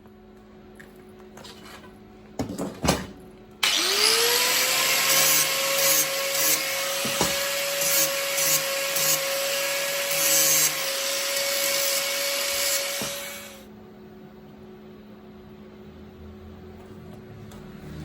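A couple of sharp metal knocks, then a welding arc that burns for about ten seconds, a loud, dense crackling hiss with small irregular peaks. Over it a steady whine that rises in pitch right as the arc starts, then holds.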